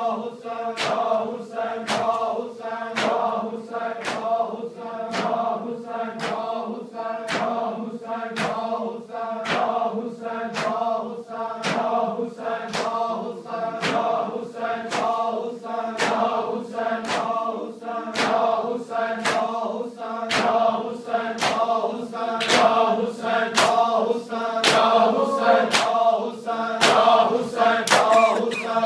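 A crowd of men chanting a nauha (lament) together while beating their bare chests in matam. Sharp slaps land on a steady, regular beat under the sustained group voices.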